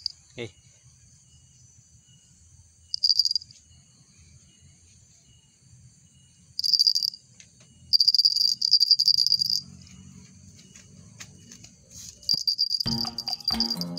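A small jingle bell, the mother cat's collar bell, shaken in four short bursts of quick, bright jingling, the longest about a second and a half. Music with a plucked beat comes in near the end.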